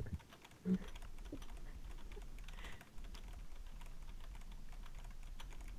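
Faint typing on a computer keyboard: soft, irregular key clicks, with one brief louder low sound less than a second in.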